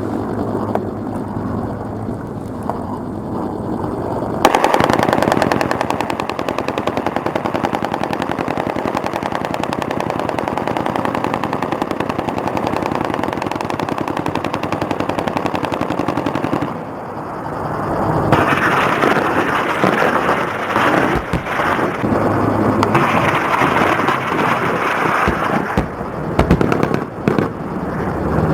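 Sustained automatic machine-gun fire in rapid continuous bursts, starting about four seconds in and growing louder again after a short lull near the end.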